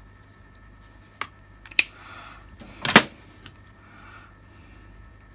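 Handling noise at a workbench: three sharp clicks and knocks, the loudest about three seconds in, with soft rustling between them.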